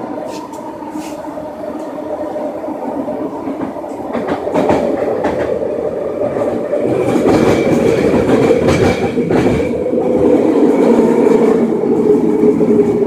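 Vancouver SkyTrain car running along the elevated guideway, heard from on board. A steady rumble with scattered wheel clicks grows louder about four seconds in, and a high steady whine joins a couple of seconds later.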